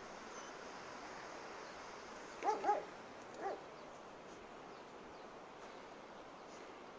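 A dog barking: two quick barks about two and a half seconds in, then one more a second later, over a steady background hiss.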